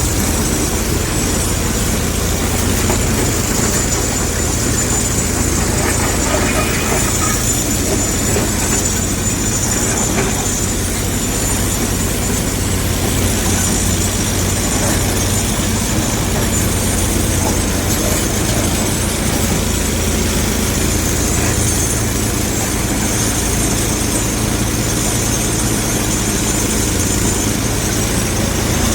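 Heavy diesel engines of earthmoving machinery running steadily with a low rumble.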